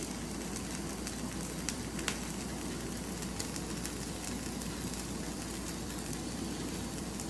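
Squash seeds sizzling in a little oil in a frying pan as they pan-roast. It is a steady crackle with scattered small pops.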